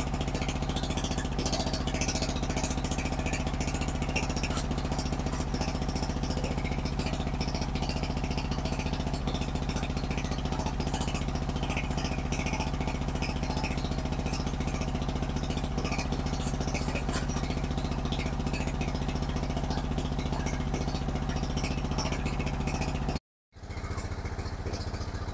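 Engine of a brick-moulding machine running steadily at an even speed, a constant low mechanical hum. Just before the end it cuts off for a moment and a slightly different engine hum takes over.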